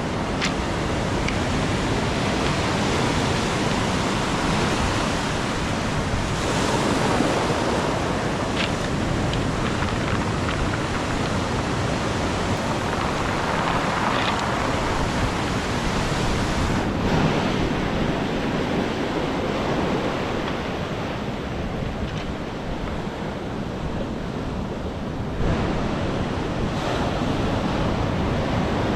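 Ocean surf breaking and washing in, a steady rushing wash that rises and falls, with wind buffeting the microphone. It eases off for a few seconds, then surges louder again near the end.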